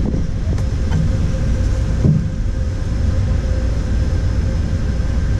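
Wind buffeting the microphone of a kayak-mounted action camera: a steady low rumble, with a few faint knocks about half a second, one second and two seconds in.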